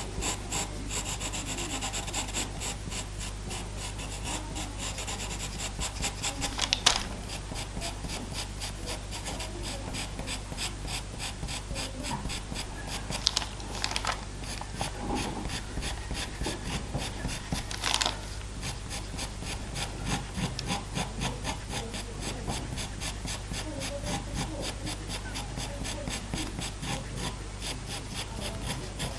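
Faber-Castell Pitt pastel pencil scratching across Pastelmat paper in rapid short strokes, laying in fur, with a few sharper ticks of the pencil tip. A steady low hum runs underneath.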